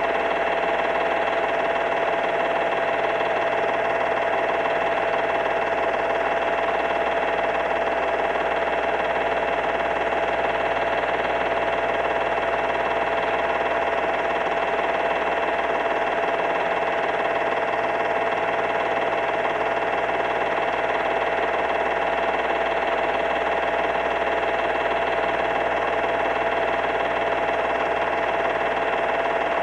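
A home-movie film projector running steadily: an unchanging whirring drone made of several steady tones, one standing out in the middle pitch, over a hiss.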